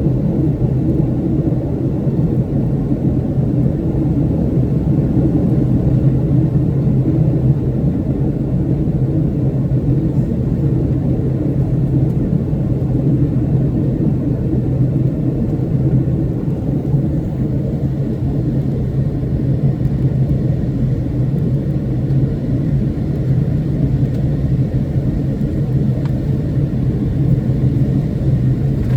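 Steady low rumble of a Boeing 757-200's engines and airflow in flight, holding even throughout with no change in pitch or level.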